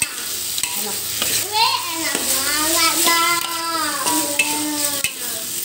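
Tempe orek sizzling in a wok as a metal spatula stirs and scrapes it around the pan. A child's high voice, drawn out like singing, comes in over the middle for about three seconds.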